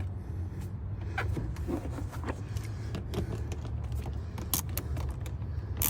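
Scattered light clicks and small metal knocks of a hand tool working the hose clamps on an intake tube, over a steady low hum.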